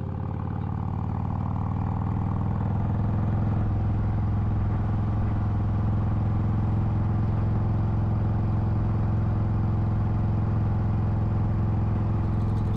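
Motorcycle engine running at a steady speed, growing louder over the first few seconds and then holding an even note.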